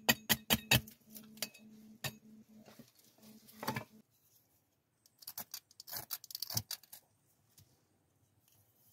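Hatchet chopping small pieces of wood in quick light strikes, about five a second, stopping about a second in. Later, split sticks of kindling knock and clatter together as they are handled, in two short clusters.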